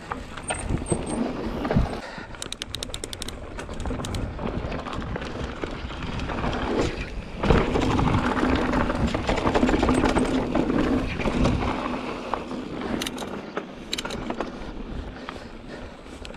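Mountain bike riding down a dirt trail: tyre noise and the rattle of the bike over bumps. A steady buzz rises over it for a few seconds in the middle.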